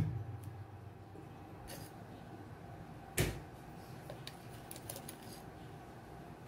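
A Spam can set down on a wooden cutting board with a dull thud right at the start, then a single sharp knock about three seconds in and a few faint light clicks, over quiet room hum.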